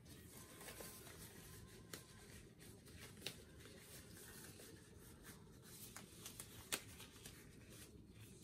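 Faint rustling of a glove being worked onto a hand, with a couple of sharp little snaps, one about three seconds in and a louder one near the end, over a low steady room hum.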